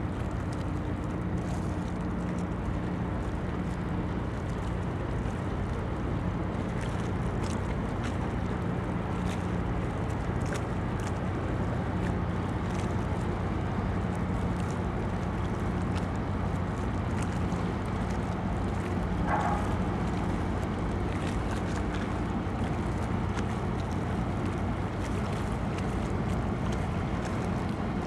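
Harbour tug's diesel engines running at low speed: a steady low drone with a few humming tones that swell and fade slowly, with wind on the microphone.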